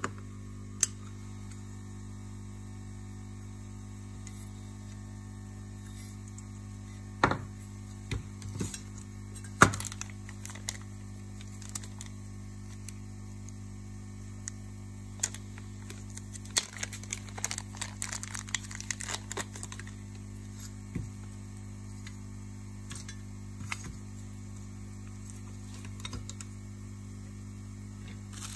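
Steady mains hum under scattered sharp clicks and taps from small parts and a screwdriver being handled on a workbench, with a busy run of light clicks and rattles about two thirds of the way through.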